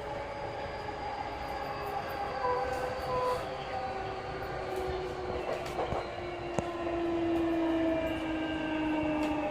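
Onboard running sound of a JR East E233-3000 series electric train: the traction motors and inverter whine in several tones that fall slowly in pitch as the train brakes, over wheel-on-rail rumble with a few sharp clicks.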